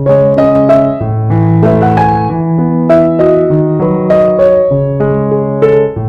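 Background piano music: a melody over held bass notes that change about once a second.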